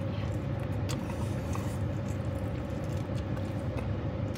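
Steady hum of a running car, heard from inside the cabin, with faint scattered clicks of chewing on a buffalo wing.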